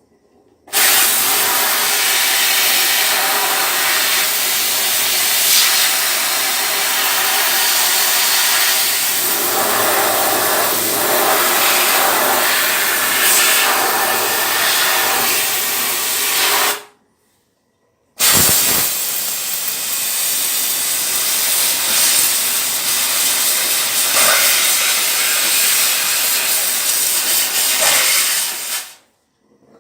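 A loud, steady hiss in two long runs, the first about sixteen seconds and the second about eleven, each starting and stopping abruptly with a short silence between.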